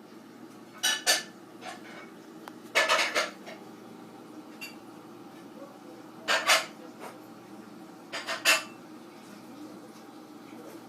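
Hard objects clinking and clattering in four short bursts, over a steady low hum.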